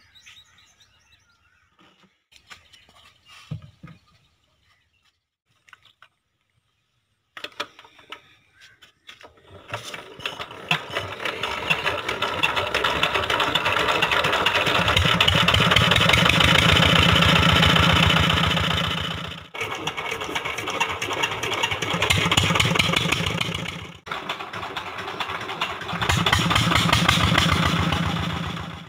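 Petter 23 hp diesel engine starting about ten seconds in, after a few faint clicks of handling. It then runs with a rapid, steady beat, driving a water pump by belt.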